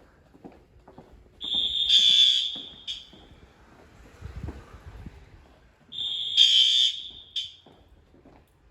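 First-generation Wheelock AS fire alarm horn sounding during an alarm test: two loud, high-pitched blasts, each about a second and a half long, about four and a half seconds apart, with quieter gaps between them.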